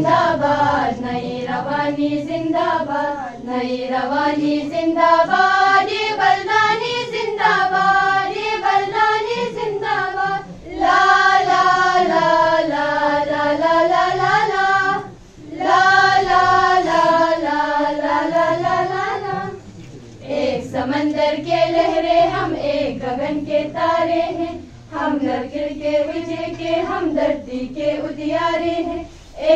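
A group of young women singing a slow song together in unison, in long held phrases with short breaks between them.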